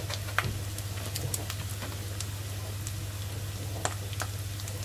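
Minced meat and tomato paste frying in a stainless steel pot, a steady sizzle with scattered crackling pops. A steady low hum runs underneath.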